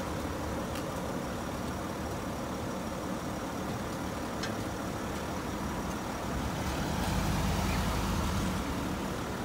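Sprinter van's engine running at low speed as the van creeps slowly onto a rollback's steel deck; the low engine sound swells for a second or two about seven seconds in.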